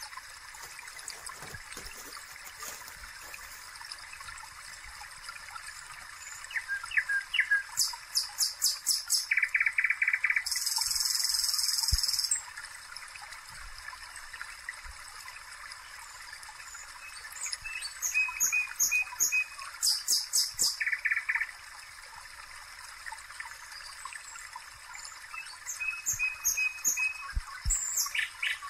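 A small songbird singing: several runs of rapid, evenly repeated high chirps, with a denser buzzy trill about a third of the way in, over a faint steady hiss.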